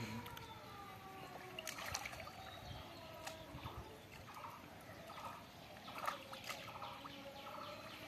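Faint sloshing and trickling of shallow muddy water as hands grope through it for fish, with a few small sharp splashes.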